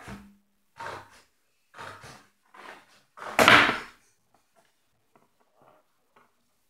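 A sheet of paper handled close to the microphone: a series of rustles and swishes about a second apart, the loudest about three and a half seconds in, then only faint light rustles.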